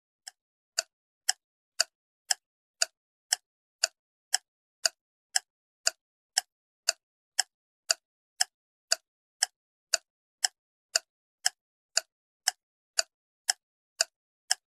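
Clock-tick sound effect, about two even ticks a second, counting down the time to guess.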